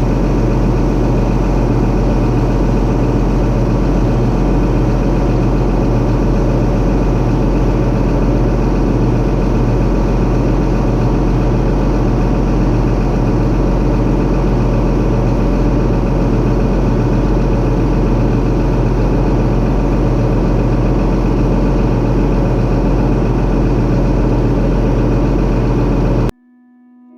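Engine of heavy harvest machinery running at a steady speed with a strong low hum, cutting off suddenly near the end.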